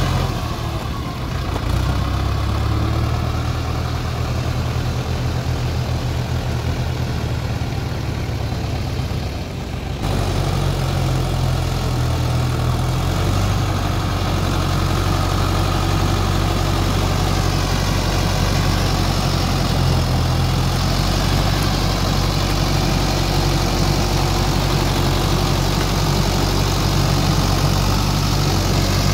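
A Mahindra Shaktimaan 614 tractor's diesel engine running steadily as it pulls a rotavator through flooded paddy mud. The sound shifts abruptly about ten seconds in.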